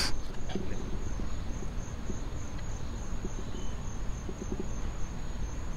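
Insects trilling steadily at a high pitch, over a low background rumble.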